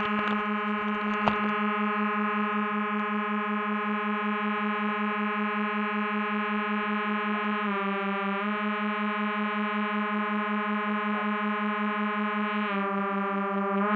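Electronic drone music: one low sustained note with a steady pulsing flutter. It sinks slightly in pitch a little past halfway, comes back, and sinks again near the end. There is a sharp click about a second in.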